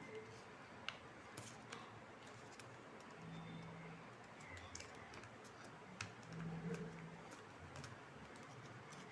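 Faint, irregular clicks and crinkles of paper being handled and folded, with a faint low hum coming and going in the second half.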